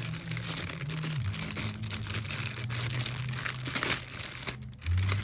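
Clear plastic packaging bag crinkling and rustling as it is handled and a rubber dog toy is pulled out of it.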